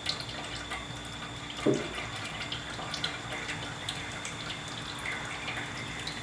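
Last of the used engine oil dripping from the drain of a Cub Cadet 1450's Kohler engine, in small irregular drips after the drain has nearly finished. A brief low sound about two seconds in.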